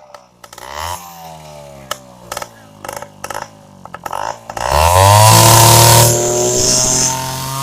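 Bajaj M80 motorcycle engine running, blipped briefly about half a second in, then revved hard about four and a half seconds in, held for a second or so and eased back to a lower speed. A few sharp clicks sound over the running engine in between.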